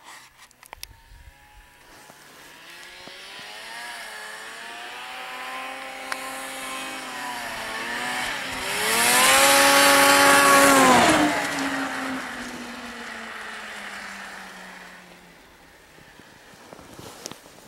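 Arctic Cat ZR 600 snowmobile's two-stroke engine passing by: it builds as it approaches with the revs rising and falling, is loudest about halfway through at high revs, then fades away with its pitch dropping.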